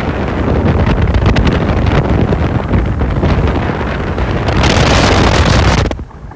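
Loud wind buffeting a phone's microphone on a speedboat underway, with the boat's running noise beneath it. The rush drops sharply near the end.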